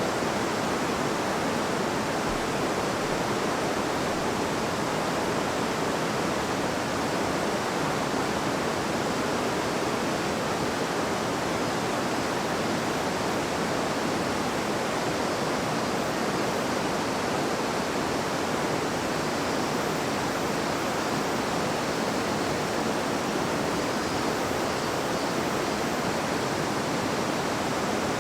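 River water babbling: a steady, even rush of flowing water with no change throughout.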